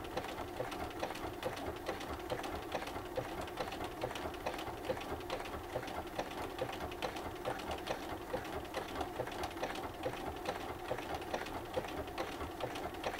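Bernina sewing machine running steadily, sewing a decorative stitch through quilting cotton, with an even clicking rhythm from the needle.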